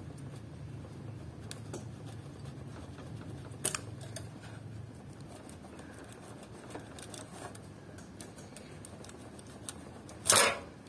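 Utility knife blade cutting and scraping hardened hot glue off aluminum screen mesh: scattered small scratches and clicks, with one short, much louder scrape near the end as a strip of glue is cut and pulled away from the mesh. A steady low hum lies underneath.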